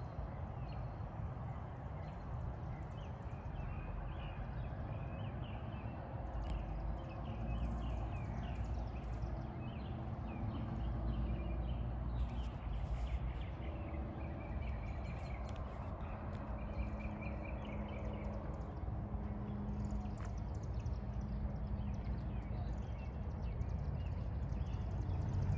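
Birds chirping over a steady low rumble, with many short high chirps that thin out toward the end.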